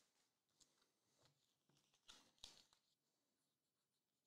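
Near silence: room tone with a few faint taps and rustles, the most noticeable a pair about two seconds in.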